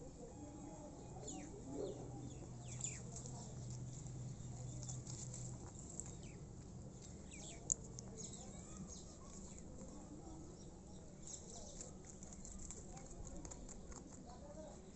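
Faint outdoor ambience with small birds chirping now and then, and one sharp click about halfway through.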